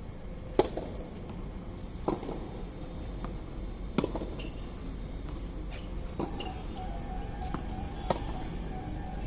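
Tennis ball struck by rackets and bouncing on a hard court during a rally: sharp pops, the loudest about half a second in as the serve is hit, then others around two, four and eight seconds in.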